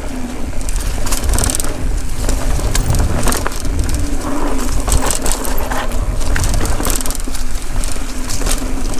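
Mountain bike rolling fast over a dirt singletrack strewn with dry fallen leaves: the tyres keep up a steady noise, with many small clicks and crackles from leaves and debris. Low rumble of wind on the rider-mounted microphone runs underneath.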